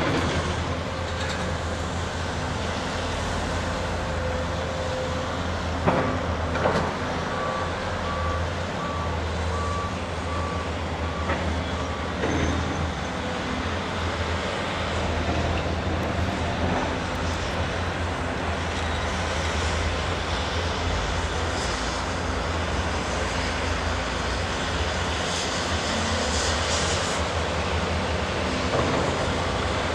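Heavy construction machinery running steadily, with a reversing alarm beeping evenly for several seconds about a quarter of the way in. A couple of sharp knocks come just before the beeps.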